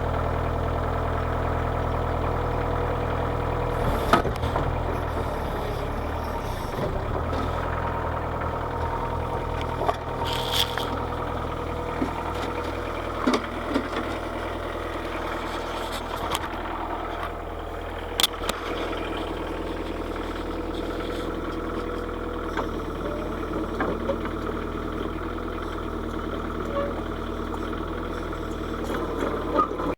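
Kubota KH-90 mini excavator's diesel engine running steadily, its note shifting at about four seconds and again past the two-thirds mark, with a few short sharp clicks.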